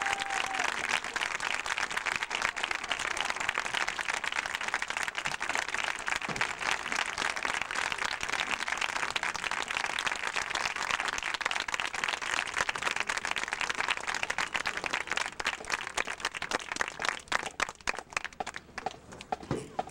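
Crowd applauding and clapping in the stands, thinning to scattered claps near the end.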